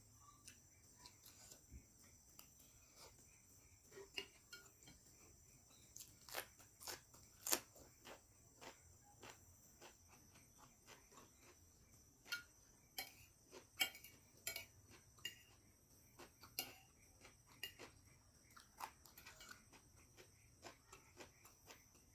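Faint eating sounds: a spoon clicking and scraping on a plate of fried rice, with chewing and small mouth clicks coming irregularly, the sharpest click about seven and a half seconds in.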